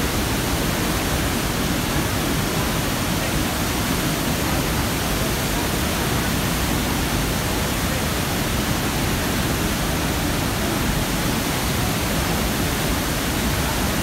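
Iguaçu Falls: a steady, unbroken rush of massive falling water, with a deep rumble underneath the hiss.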